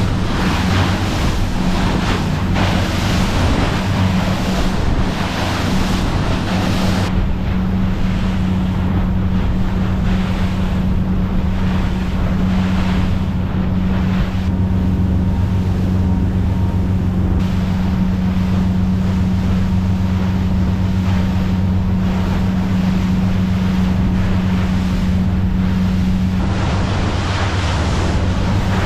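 Motorboat engines droning steadily under way, with rushing water and waves against the hull and wind on the microphone; the water and wind noise is heavier for the first several seconds and again near the end.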